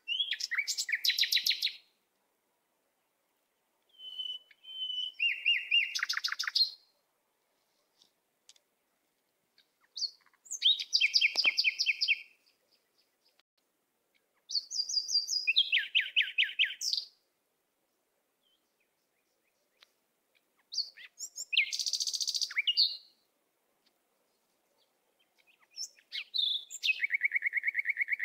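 A songbird singing six short, high, rapidly trilled phrases, each about two to three seconds long, with silence between them.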